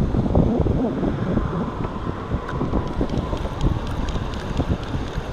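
Gusty wind buffeting the microphone, with the faint ticking of a spinning reel being cranked from about halfway in.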